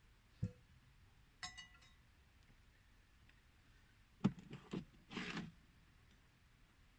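Tools and pipe parts being handled: a soft knock, a short ringing clink about a second and a half in, a quick cluster of knocks around four seconds in, then a brief scrape.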